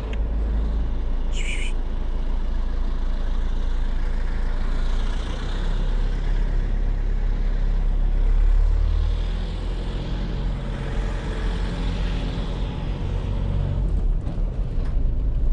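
Vehicle engine running steadily at low revs, a continuous low rumble that swells slightly about halfway through. A brief high squeak sounds about a second and a half in.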